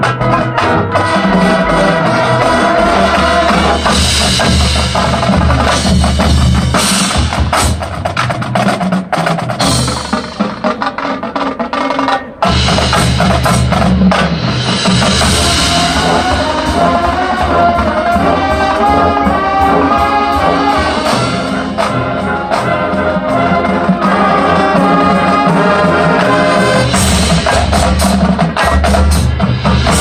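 Marching band playing live: brass over a drum line with snare and bass drums. The music thins out briefly, cuts off sharply about twelve seconds in, then the full band comes back in.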